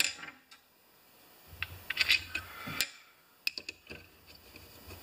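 Hand screwdriver and small screws clicking and tapping against the chainsaw's housing as screws are driven in by hand, with scattered sharp clicks and a low rumble of handling.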